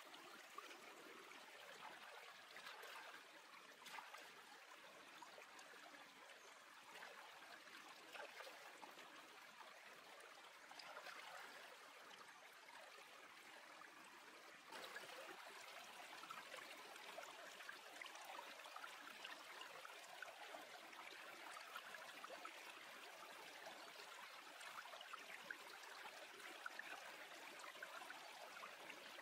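Faint, steady rushing and trickling of a shallow stream running over rocks, with small splashes and ticks of hands washing food in the water. It gets slightly louder about halfway through.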